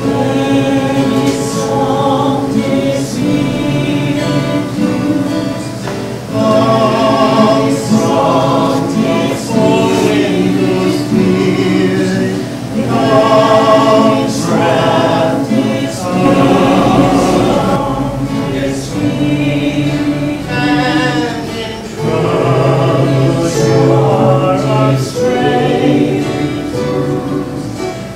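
A group of voices singing a slow, repeated Taizé chant, in phrases of a few seconds with short breaks between them.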